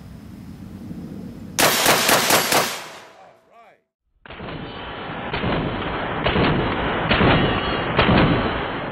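A Benelli Super Sport 12-gauge semi-automatic shotgun fired in a rapid string, about five shots in just over a second as fast as the action cycles. After a short silence, a second run of repeated shots follows, duller-sounding.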